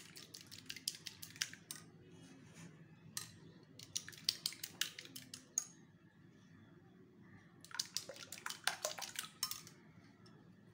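Two eggs being beaten with a metal fork in a glass bowl: quick clicking strokes of the fork against the glass, about six a second. The beating comes in three runs, with short pauses between them.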